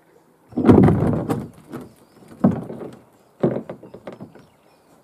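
Kayak hull knocking and scraping as it is handled and lifted. The longest, loudest bump comes about half a second in, followed by two shorter knocks about a second apart and a few lighter taps.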